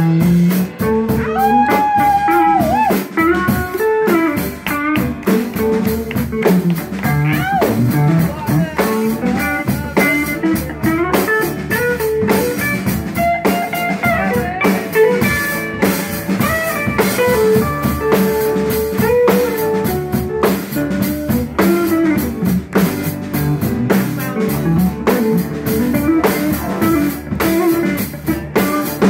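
Live band playing an instrumental stretch of a song: a drum kit keeps a steady beat under electric bass, with a melody line that bends and slides in pitch above them.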